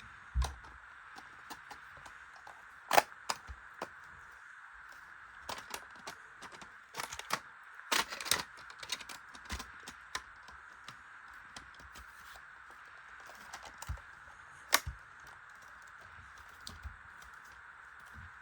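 Plastic LEGO bricks clicking and clattering as they are handled and pressed together, with a few sharp clicks standing out about three, eight and fifteen seconds in, over a steady background hiss.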